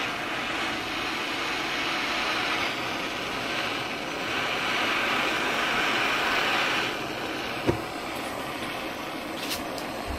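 Handheld butane blowtorch burning with a steady hiss while it heats a suspension arm's metal bush housing, to expand it and soften the rubber bush for removal. A single sharp knock about three-quarters of the way through.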